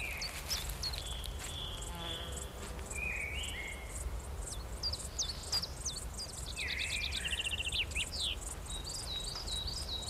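Meadow ambience: insects chirping in a quick, steady rhythm, with small birds singing short whistled notes over it and a fast trill about seven seconds in.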